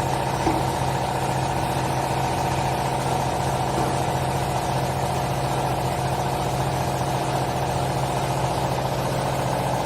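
Hydraulic power unit of a vertical baler running steadily: an even motor-and-pump hum with a higher whine above it, which cuts off shortly after the end.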